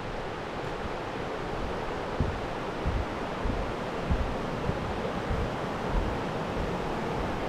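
Steady rush of a river flowing beneath a footbridge, with wind buffeting the microphone in low, uneven gusts.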